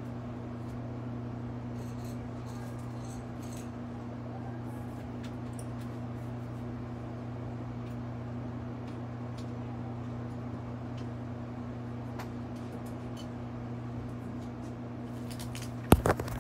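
A steady low hum with faint scattered clicks, then a few loud sharp knocks near the end.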